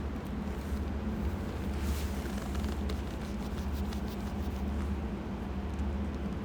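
Steady low machine hum with a light hiss and faint scattered ticks.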